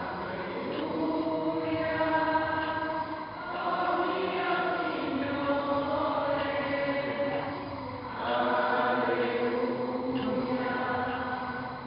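Background music: a choir chanting in slow phrases of long-held notes, breaking about every four seconds.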